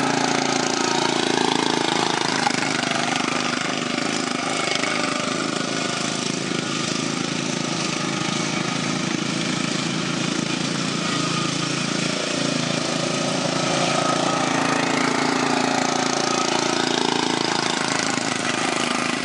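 Several racing lawn mower engines running together in a heat, their pitch rising and falling as they throttle up and back off.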